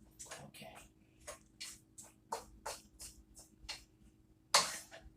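Stir-fry vegetables being stirred in a pan with a utensil: a run of short scraping strokes, about three a second, with a louder stroke near the end.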